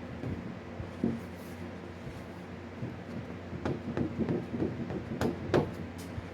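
Bondo body filler being mixed with hardener: the mixing tool scraping and knocking on the board in a run of short strokes in the second half, the sharpest near the end, over a steady low hum.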